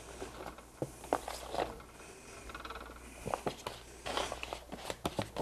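Cubed zucchini and summer squash dropping by hand into a stainless steel pan, making scattered, irregular soft taps and clicks.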